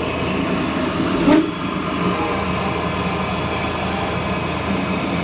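Piling machine's engine running steadily, with one short knock about a second in.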